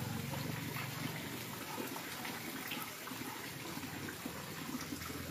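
Water moving and splashing in shallow floodwater. A low hum fades out about a second in.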